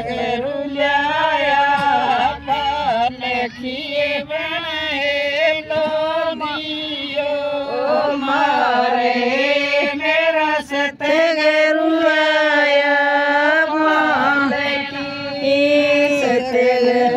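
Women singing a folk song unaccompanied, in long, drawn-out wavering notes.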